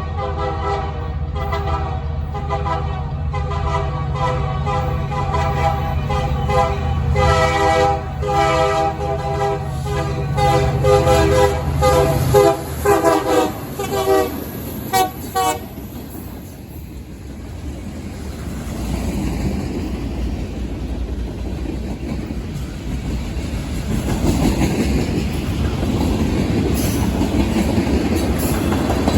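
Union Pacific locomotive's multi-note air horn played as a horn show, over the rumble of the locomotive's engine. Long chord blasts give way to a run of rapid short toots that stops about halfway through. After that comes the steady wheel noise of the train's cars rolling past, growing louder near the end.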